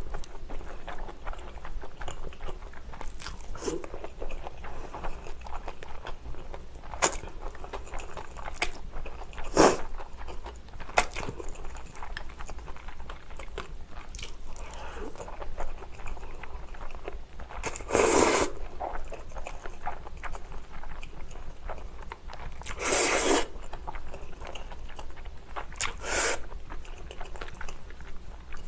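Close-miked eating of spicy cold noodles: wet chewing and mouth smacks with scattered sharp clicks, and a few longer slurps of noodles about 18 and 23 seconds in.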